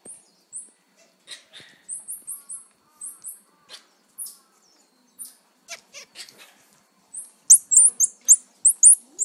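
Squirrel monkeys giving short, high-pitched chirps: a few scattered, a quick run of four about two seconds in, and a louder quick run of about seven near the end.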